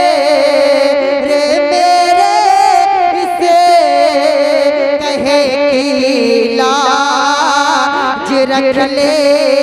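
Male naat reciter singing long, drawn-out notes with heavy vibrato through a microphone and PA, with the melody slowly sinking. About seven seconds in, a second, higher voice joins.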